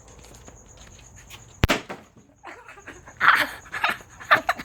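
A firecracker going off inside a plastic milk jug of water: one sharp bang about a second and a half in, blowing the water out of the jug. A few loud, short noises follow near the end.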